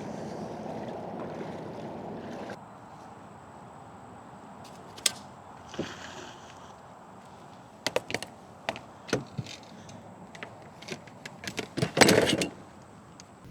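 About two seconds of steady water-and-boat noise, then a quieter stretch with scattered sharp clicks and knocks of gear being handled, and a louder clattering burst near the end.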